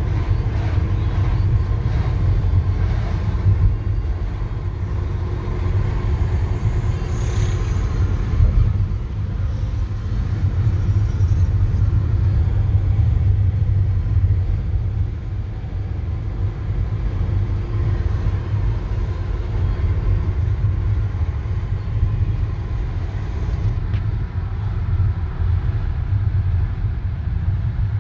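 Steady low road and engine rumble heard from inside a car's cabin while it drives in traffic.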